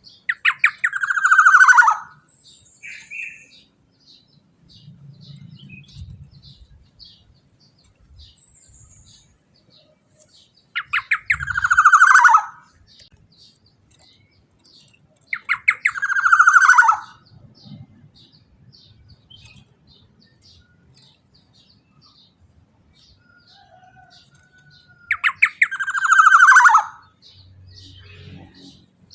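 Black-naped oriole calling four times, each a quick stutter of notes running into a harsh, downward-sliding call, with faint fast ticking in the background between calls.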